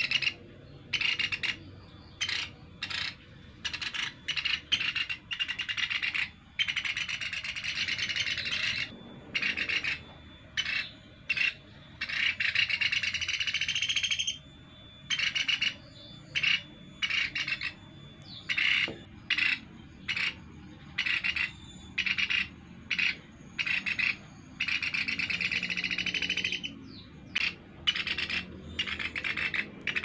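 Young Sunda pygmy woodpeckers calling: a run of short, harsh calls about once a second, with a few longer calls lasting a second or two.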